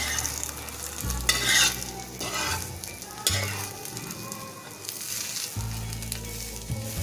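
Egg paratha sizzling as it fries in a pan, with a spatula scraping and pushing it about as it is folded. There are louder bursts of scraping and sizzle about a second in, around three seconds and around five seconds.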